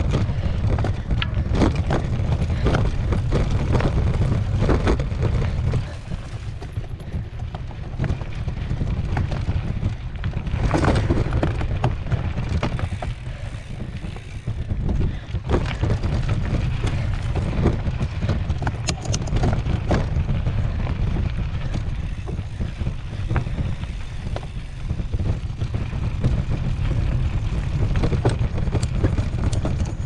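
Mountain bike ridden along rough dirt singletrack, with wind buffeting the action camera's microphone as a steady low rumble and frequent clicks and rattles from the bike jolting over the ground.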